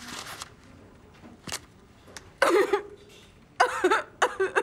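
A woman's put-on crying: short, wavering whimpering wails about two and a half seconds in and again near the end.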